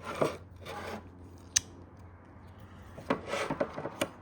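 Hand-handling of a removed trunk lock actuator assembly: short scrapes, one sharp click about a second and a half in, then a run of clicks and rattles near the end.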